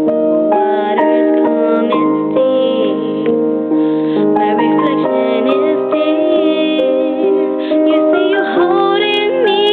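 Piano-led instrumental backing music, a run of sustained notes with no singing.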